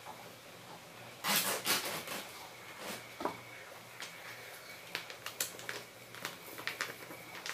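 Hand-mixing cake batter in a bowl: a brief rustle about a second in, then scattered light clicks and knocks of a spoon against the bowl.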